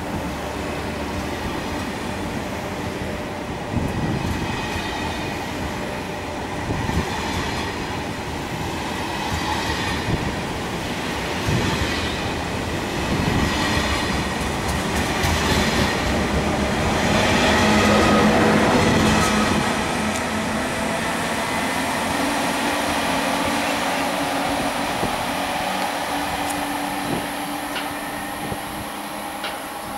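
TGV high-speed train rolling slowly along a station platform, its wheels clicking over the rail joints as the bogies pass, over a steady hum from the running gear and traction equipment. The sound builds to its loudest about two-thirds of the way through, then holds steady.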